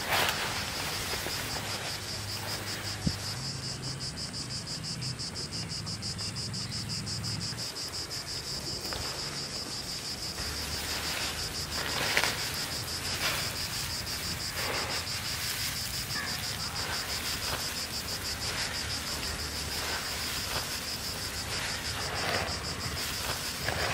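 Insects chirring in a steady, fast-pulsing high trill, with a few brief rustles of hands mixing a heap of food on banana leaves.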